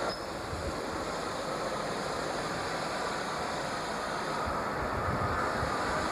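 Oil-fired South African Railways Class 25NC steam locomotive on the move, heard close to its boiler as a steady, even noise without sharp beats.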